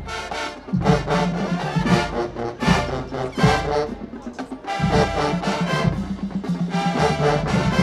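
Marching band brass section playing loud, punchy phrases with short breaks between them, cutting off near the end.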